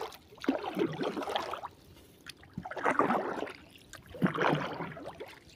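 Paddle strokes in the water beside a small wooden boat: three strokes, each about a second long, about a second and a half apart.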